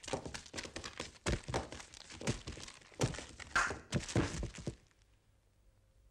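Cartoon sound effects of someone scrambling on a floor after a slippery chicken: a quick, irregular run of thumps, knocks and scuffs that stops about five seconds in.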